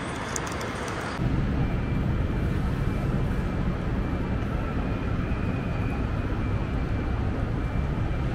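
Ambient noise of a large airport terminal hall: a steady low rumble with a faint high steady tone, starting abruptly about a second in after a quieter hiss with a few light clicks.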